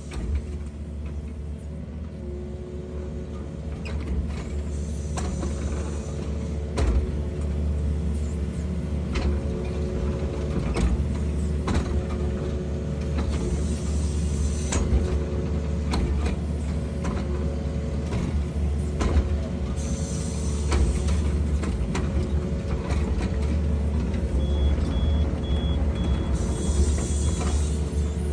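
Excavator's diesel engine running steadily under work, with repeated knocks and clanks from the machine and recurring hissy bursts every several seconds. A short run of high beeps comes near the end.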